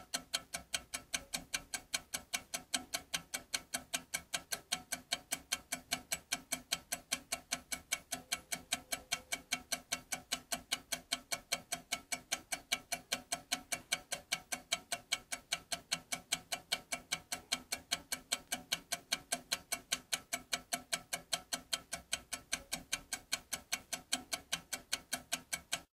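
Clock ticking fast and evenly, about four to five ticks a second, each tick a sharp click.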